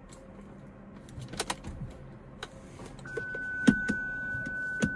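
Clicks and knocks from the SMG gear selector lever of a BMW 645 (E63) as it is pushed back and forth, while the gearbox, stuck in reverse by a faulty shift sensor, refuses to go into neutral. A steady high-pitched tone starts about three seconds in and keeps going.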